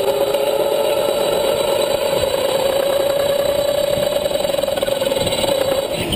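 Go-kart running at speed, heard from an onboard camera: the kart's motor gives a steady high whine over track and wind noise.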